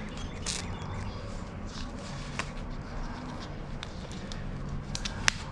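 Hand-cranked copper wire stripper being turned with wire feeding through it: scattered small clicks and scraping, with one sharp click near the end, over a steady low hum.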